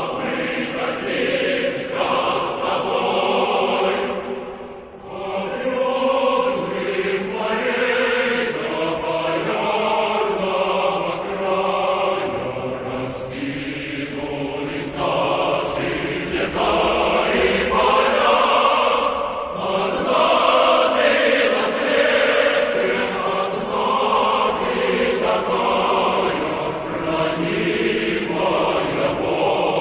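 Background music of a choir chanting, many voices singing together, with a brief drop in loudness about five seconds in.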